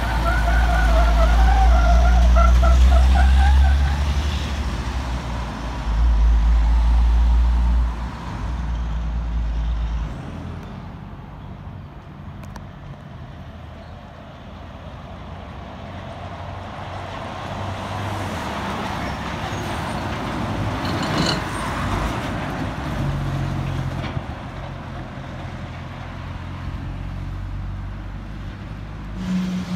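A cab-over semi-trailer truck's diesel engine is loud as it pulls a tipper trailer around a roundabout, with a wavering whine over the first few seconds. After about ten seconds it fades into a lighter hum of passing cars and traffic.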